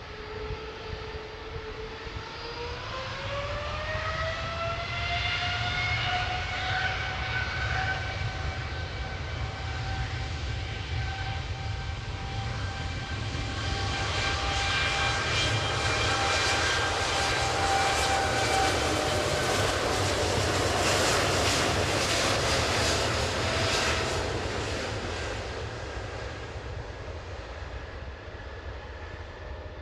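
Boeing 787-8 airliner's Rolls-Royce Trent 1000 turbofans spooling up to takeoff thrust: a whine rises in pitch a couple of seconds in and then holds steady, under a jet roar that grows, is loudest past the middle, and fades away near the end as the airliner takes off.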